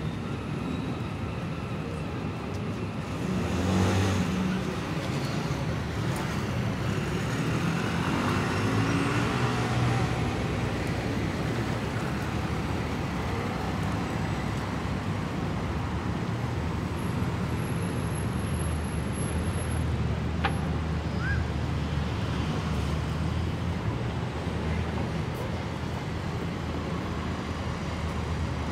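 Road traffic at a busy city junction: double-decker buses, a taxi and cars driving past over a steady low rumble. It is loudest as one vehicle passes close about four seconds in.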